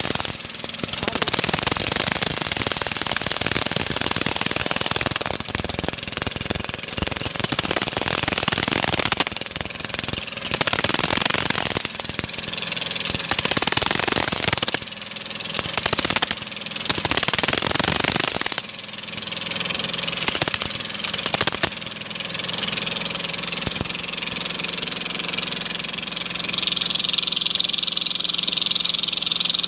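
An engine running on a street works site: rough and loud, with short breaks, for the first half, then settling to a steadier even running. A high steady tone joins near the end.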